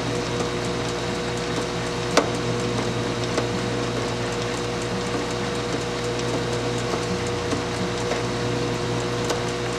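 Metal lathe turning at slow speed while a narrow parting blade cuts into the spinning metal disk, parting it off: a steady motor hum with a cutting hiss. Several sharp clicks come through, the loudest about two seconds in.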